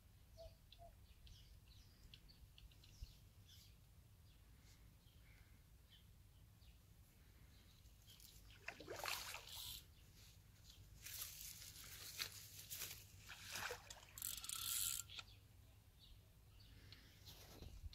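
A hooked carp splashing and thrashing at the water's surface: several bursts of splashing in the second half, with faint bird chirps in the first few seconds.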